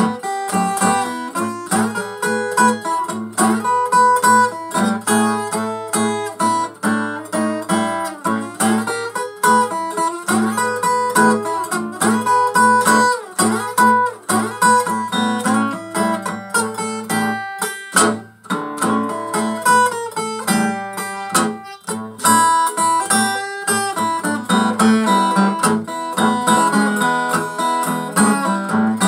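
Takamine EF360STT acoustic guitar, its sides cracked, playing an instrumental blues passage: a continuous run of plucked notes ringing over repeated bass notes.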